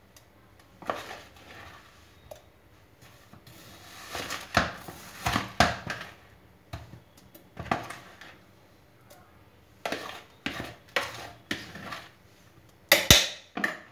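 A spoon scraping scoops of ice cream out of its container and knocking against a steel mixer jar: a run of irregular scrapes and clinks, with a sharp knock near the end.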